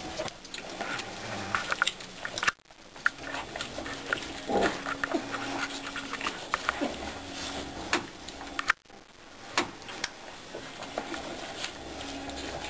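Tamworth sow and her one-week-old piglets at nursing: the piglets squeal and squeak as they jostle at the teats, with the sow's low grunts underneath. The sound drops out suddenly and briefly twice.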